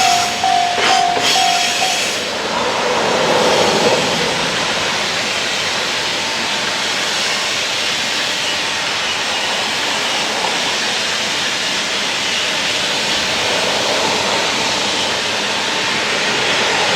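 Japanese level-crossing warning bell clanging at about two strokes a second, stopping about two seconds in. After it a train goes through with a steady rushing noise of wheels on the rails; on this freight-only line that is a freight train.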